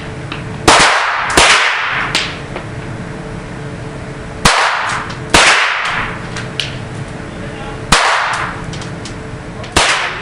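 Pistol shots fired singly at irregular intervals, about six loud ones with a few weaker pops between, each followed by echo ringing in the indoor range.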